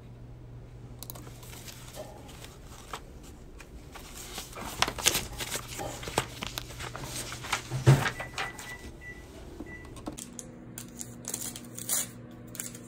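Sheets of printed paper being handled and leafed through, rustling and crackling, busiest in the middle, over a steady low hum. Near the end, scattered crinkling clicks.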